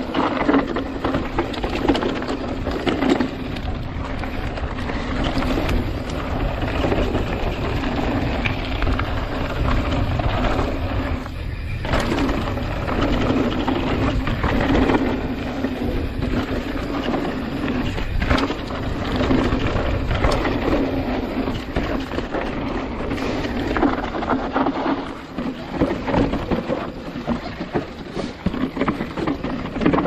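Mountain bike riding down a dirt singletrack: tyres rolling over dirt and rocks, with the bike rattling and clattering over bumps and wind noise on the camera microphone. There is a brief lull about a third of the way in.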